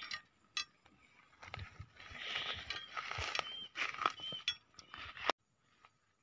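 Rustling and crackling of dry grass and brush being pushed through on foot, with scattered clicks and two short high chirps. The sound cuts off abruptly about five seconds in.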